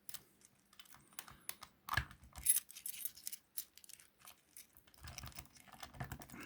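A metal jiggler key sliding into a wafer lock and being jiggled in the keyway, making light, irregular clicks and scrapes. The clicking gets busier near the end.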